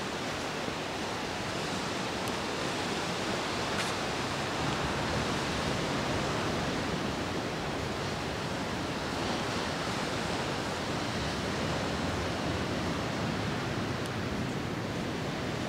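Steady, even wash of ocean surf.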